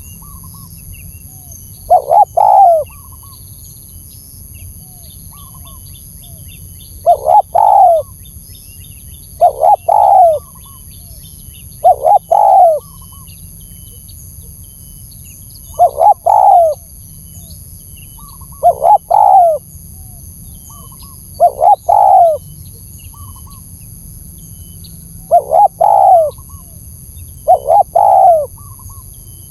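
Spotted dove (tekukur) cooing a lure call: a loud, low multi-note coo phrase repeated about nine times, every two to four seconds. Faint chirps of small birds and a steady high whine sit behind it.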